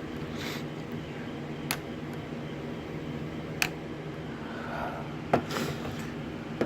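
Pliers clicking and slipping on a hose clamp, three sharp clicks a couple of seconds apart with some rustling, over a steady fan hum.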